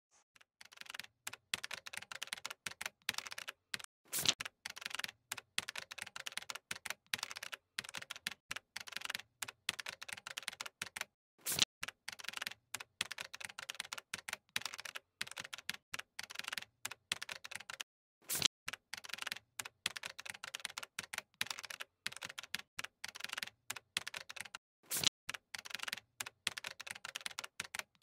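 Typing sound effect: rapid, irregular key clicks running on steadily, with a louder stroke about every seven seconds.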